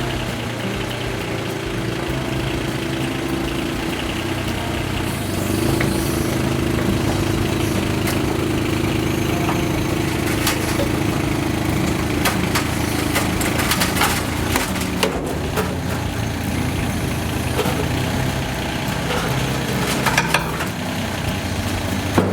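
Yanmar Vio17-1 mini excavator's diesel engine running, getting louder about five seconds in, with a series of sharp knocks and clanks through the second half.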